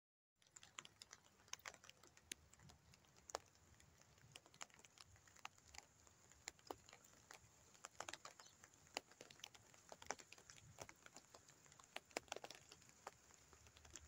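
Faint, irregular ticks of raindrops dripping and tapping close by, a few to several each second at uneven intervals, over a faint hiss of light rain.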